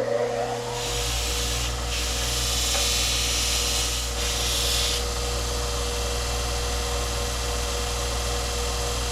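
Bucktool 2x42 benchtop belt grinder running with a steady motor whine and hum while the bit of a vintage 4-lb Mann single-bit axe is ground on the belt. The steel on the belt makes a hissing rasp from about one second in until about five seconds in; after that the grinder runs on alone. This is the grinding of the axe's main bevel.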